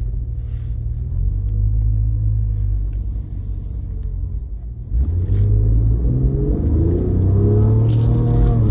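Porsche 997 Turbo's twin-turbo flat-six heard from inside the cabin while driving. It runs with a low rumble, then gets suddenly louder about five seconds in and climbs steadily in pitch under hard acceleration, dropping back sharply right at the end.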